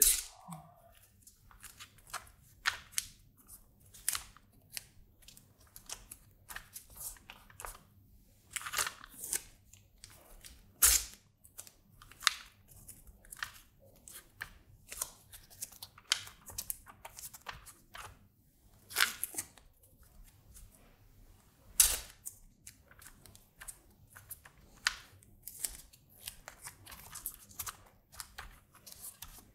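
Strips of blue masking tape being torn off and pressed onto an acrylic panel: a run of short, irregular rips and crackles, with a few louder tears standing out.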